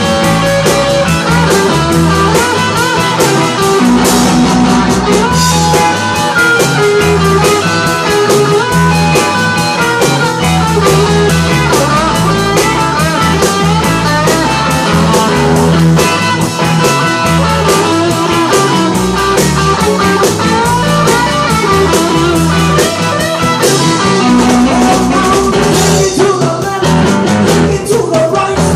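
A live rock and roll band playing: electric guitars, bass guitar and a drum kit driving a fast, steady beat, mostly instrumental, with the lead vocal coming back in near the end.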